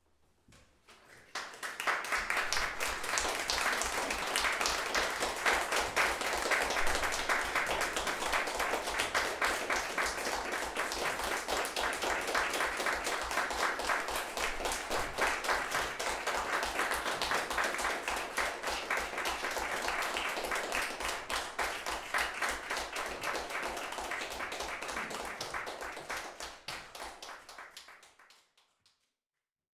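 Audience applauding: dense clapping that starts about a second in, holds steady and dies away near the end.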